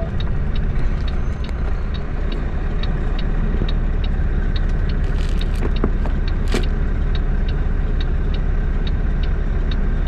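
Semi truck cab interior: steady low rumble of the engine and road noise, with a turn signal ticking evenly about two and a half times a second. A couple of brief rattles or clicks sound about five to seven seconds in.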